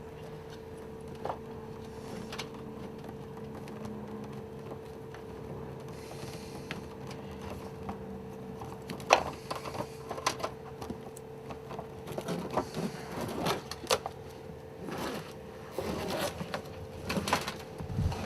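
Cables being handled and pushed through a cable duct: scattered rustles, clicks and knocks, mostly in the second half, over a steady hum.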